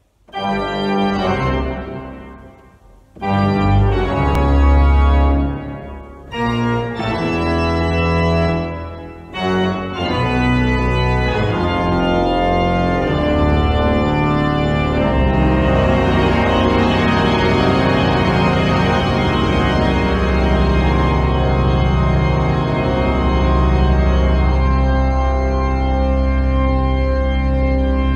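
Cathedral pipe organ being played in an improvisation: a few separate full chords with short breaks in the first ten seconds or so, then a continuous sustained passage over deep bass notes.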